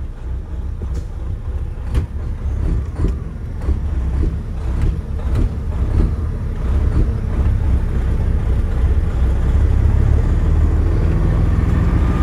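Semi truck's diesel engine running at low speed, heard from inside the cab, with sharp cab rattles and clicks in the first half. The engine grows louder over the second half, and a thin steady tone comes in near the end.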